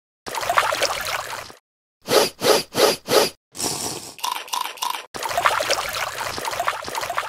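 Stop-motion foley sound effects of rubbing and scraping, in several separate bursts: four quick strokes about two seconds in, then longer stretches, with three short blips of tone near the middle.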